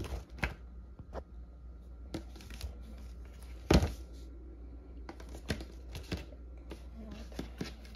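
Small leather card holders being handled and set down on a tabletop: scattered light taps and rustles, with one louder knock a little before four seconds in.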